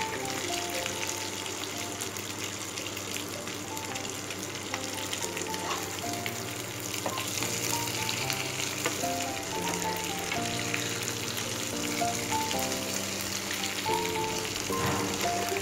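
Mutton sizzling as it fries in a pan, a steady dense crackle, with a melody of background music playing over it.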